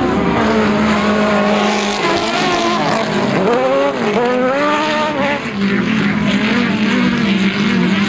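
Autocross cars' engines running hard on a dirt track. The engine note holds steady at first, then rises and falls several times as the throttle is lifted and reapplied through the corners.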